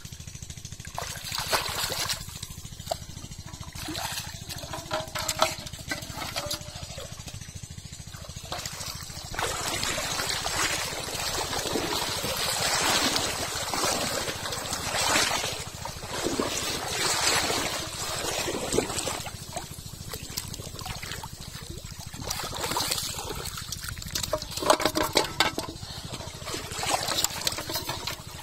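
Shallow muddy pond water splashing and sloshing in irregular bursts as someone wades through it, with trickling water; busiest through the middle and again near the end.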